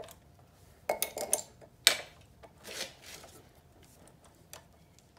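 Sharp metal clinks and clicks of hand tools on the carburettor's 10 mm mounting bolts as they are undone. There is a cluster in the first two seconds, the loudest about two seconds in, then a few fainter ticks.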